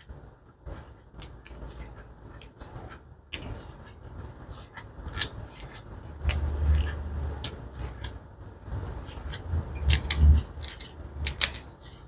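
Gloved hands turning a mini-split line set's hand-tightened quick connector and handling its foam-insulated copper lines: many irregular light clicks and rustling. Low rumbling bumps come about six and ten seconds in.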